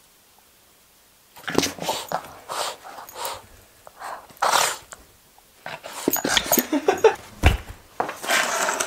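A Boston terrier playing with a tennis ball in its mouth, making repeated short, breathy huffs and snuffles that start about a second and a half in. There is a low thump near the end.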